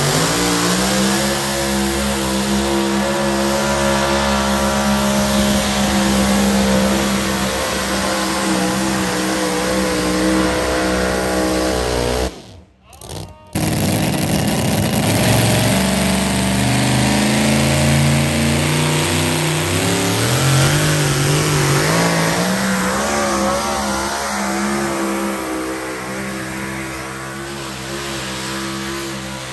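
Modified pulling pickups' engines at high revs as they drag a weight-transfer sled. The engine note climbs at the launch and holds steady. After a brief break a second truck's engine climbs again in steps and holds.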